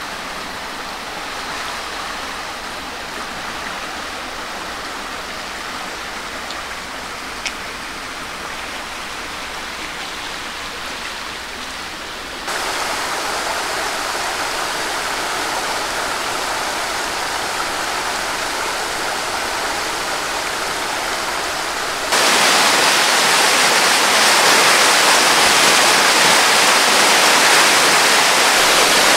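Rushing muddy floodwater, a steady rush of water that gets louder twice, about halfway through and again near the end, where it is loudest.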